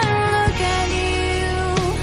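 Background song: a melody held in long notes over a steady low accompaniment.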